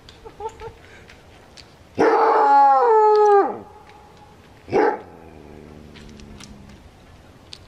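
A trapped coyote gives one loud, drawn-out bark-howl about two seconds in, its pitch holding and then dropping away at the end. About a second later comes a single short bark.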